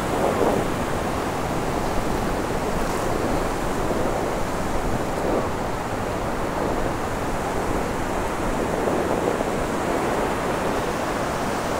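Ocean surf washing onto a beach: a steady rush of waves that swells a few times.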